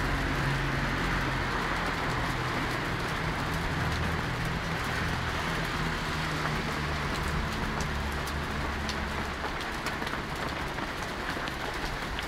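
Hail coming down hard: a steady dense hiss of falling hailstones with scattered sharp ticks of stones striking hard surfaces.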